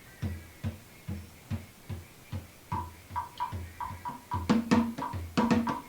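Drums played in a steady rhythm, about two to three strokes a second. From about halfway a higher, ringing struck instrument joins and the playing grows louder.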